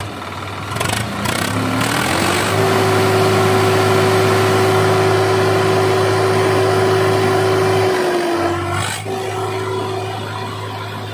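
Swaraj 744 XT tractor's three-cylinder diesel engine running: it revs up over a second or so, holds steady at higher revs, then drops back toward idle about eight seconds in.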